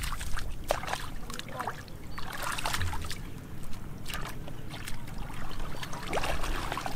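Repeated short splashes and sloshing of feet and hands moving through shallow muddy water, coming irregularly, several a second at times.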